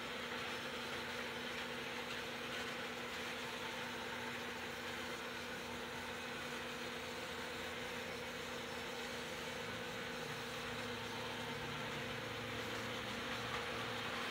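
Two electric model trains running around their track loops: a steady motor hum with the wheels rattling on the rails, growing a little louder near the end.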